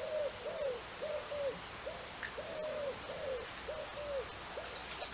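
A bird calling, a run of about ten short notes at one mid pitch, each rising slightly and falling away, with uneven gaps between them.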